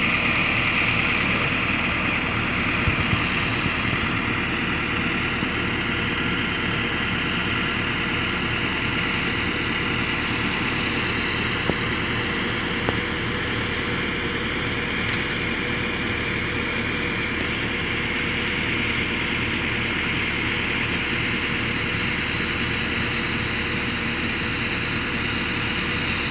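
Heavy machinery diesel engine idling steadily, with a thin high whine running over it and a few faint knocks.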